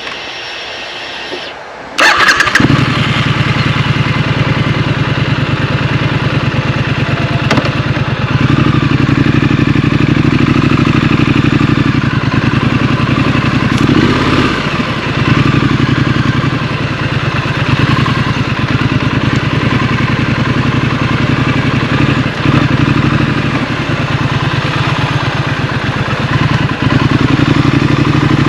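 Scrambler motorcycle engine starting: it catches suddenly about two seconds in, then runs steadily with a few swells in level.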